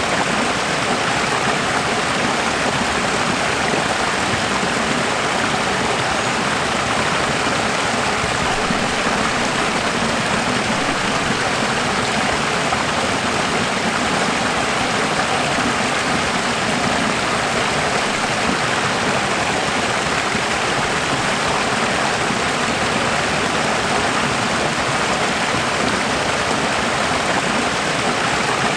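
Running water: a steady, even rush like a flowing stream, unchanging throughout.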